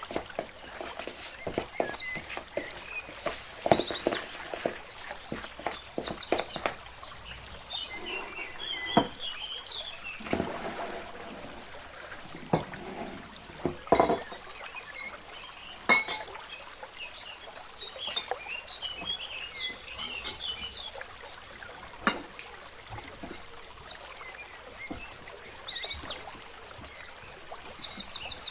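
Birds chirping and trilling repeatedly in the background, over scattered sharp clicks and knocks of kitchen utensils, with a brief pour about ten seconds in.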